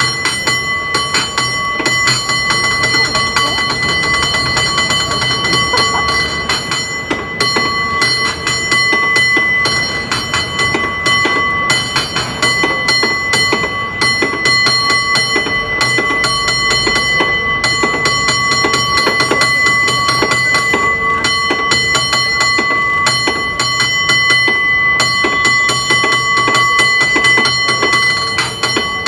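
San Francisco cable car bell rung in a rapid, rhythmic bell-ringing routine. Many strikes follow in quick succession without pause, and the bell's ring carries on steadily underneath.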